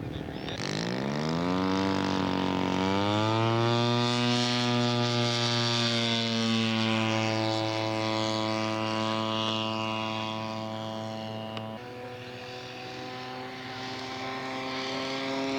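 Radio-controlled scale model airplane's engine and propeller, throttled up with a rising pitch over the first few seconds, then holding a steady high note before throttling back about twelve seconds in.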